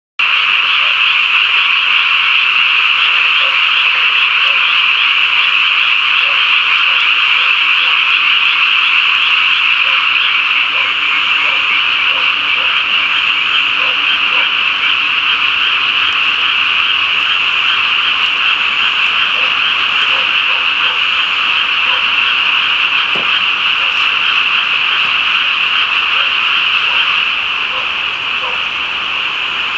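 Dense chorus of many frogs calling at once, a continuous wall of overlapping calls that begins abruptly and eases slightly near the end.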